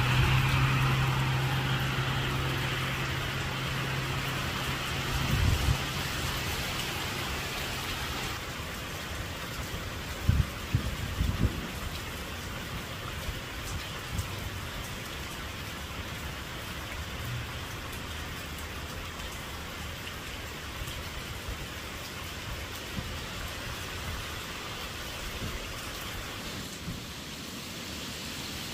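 Steady rain falling on grass and a wet road, with the tyre hiss of a passing car fading away over the first several seconds. A few low thumps stand out about ten to eleven seconds in.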